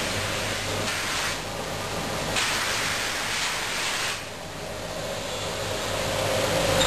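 Packaging machine running: a steady hissing noise over a low hum and a faint steady tone, louder for a stretch from about two and a half to four seconds in.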